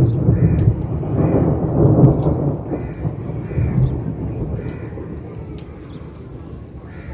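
Thunder rolling in a rainstorm: a long, deep rumble that swells over the first two seconds and then slowly dies away, with rain falling throughout.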